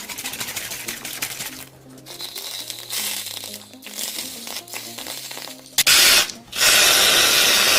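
Background music under a scratchy, crackling noise with many small clicks. Then two loud bursts of hiss: a short one just before six seconds in and a longer one of about a second near the end.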